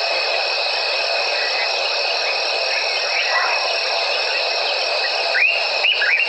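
Dense evening chorus of insects in the African bush, with a steady high trill throughout. Near the end come a few short calls that rise quickly in pitch.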